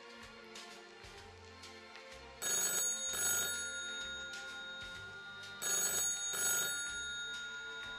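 Telephone ringing: two rings about three seconds apart, the first about two and a half seconds in, each fading before the next, over soft background music.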